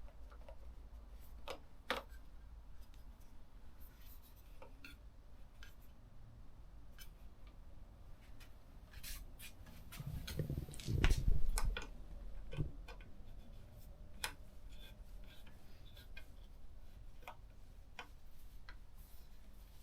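Scattered light clicks and taps of small metal parts and hand tools being handled while a bar-end mirror is fitted to a motorcycle handlebar. About ten seconds in comes a louder bout of bumping and knocking, loudest around eleven seconds.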